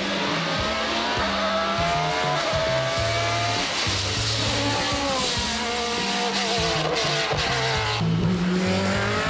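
Sports prototype race car at full throttle, its engine revving up and dropping back at each upshift, several times in a row. Background music with a stepping bass line plays under it.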